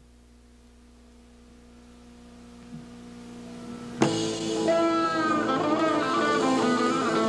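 A live rock-soul band starts a song: a faint sustained tone slowly grows louder, then about four seconds in the full band comes in at once, with electric guitar, bass, drums and keyboards playing.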